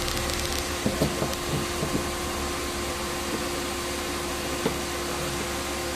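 Car heater blower on high, a steady rush of air with a constant hum from the running engine, heard inside the cabin. A few light knocks sound in the first two seconds and once more near the end.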